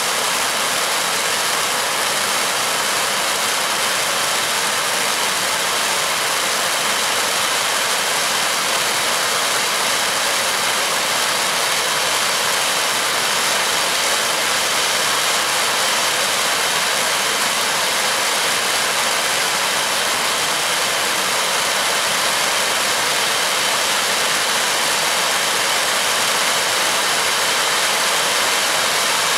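Eight gerb spark fountains of a ground firework set piece hissing in one steady, even rush.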